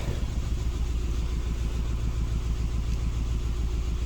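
Subaru Impreza's flat-four engine idling with a steady miss, from misfires on cylinders 1 and 3.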